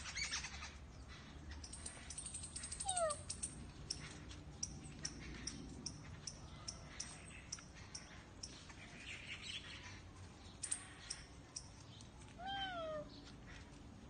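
A cat meowing twice: a short falling meow about three seconds in and a longer meow that rises and falls near the end. Small birds chirp in short, high notes throughout.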